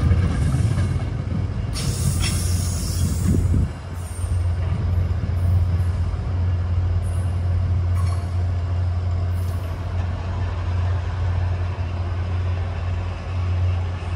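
Train running by with a steady, loud low rumble.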